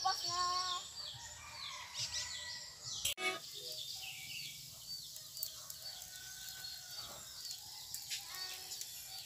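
Chickens clucking with small birds chirping in the background, fairly faint.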